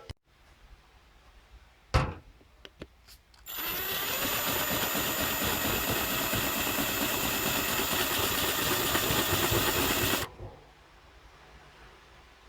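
Power drill/driver running steadily for about seven seconds, driving a screw into the repaired plastic hatch latch, then stopping suddenly. A sharp click and a few light taps come before it.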